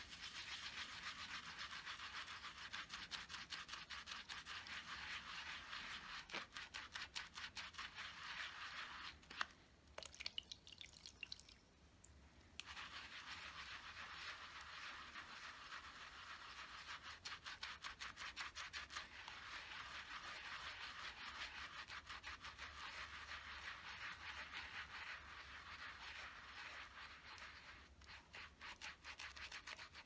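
Wet makeup brush bristles scrubbed rapidly back and forth against a textured brush-cleaning pad, a fast scratchy rubbing. It stops for about three seconds around the ten-second mark, with a few light clicks, then resumes and eases off near the end.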